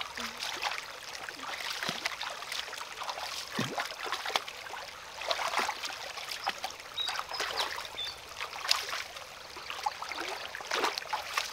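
Water trickling and splashing in a shallow stream, with irregular small splashes throughout.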